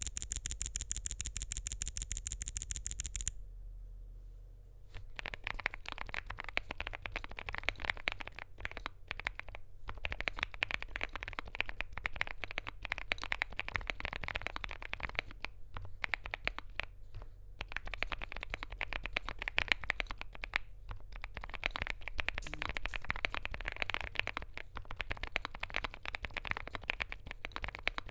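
Typing on a Knife Join65 mechanical keyboard with lubed, filmed Gazzew Boba U4T tactile switches, PBT keycaps and an FR4 plate: a dense, uneven stream of keystrokes starting about five seconds in. Before that, for about three seconds, an even, rapid run of sharp, high clicks.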